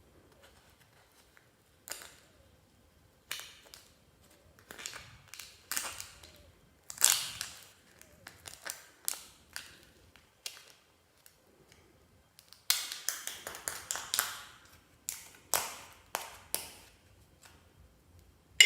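Clear slime being worked by hand, making a run of irregular sticky pops and crackles with short gaps between them, busiest about two thirds of the way through.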